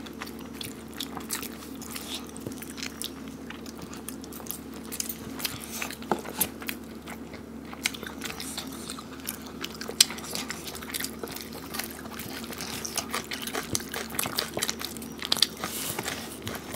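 Eating by hand: chewing and biting into whole chicken curry, with scattered short crunches and clicks as the chicken is pulled apart with the fingers, over a steady low hum.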